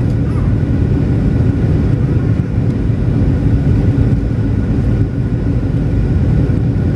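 Steady cabin noise inside a Boeing 737-800 descending to land: a low rumble of its CFM56-7B turbofan engines and rushing airflow, with a faint steady whine over it.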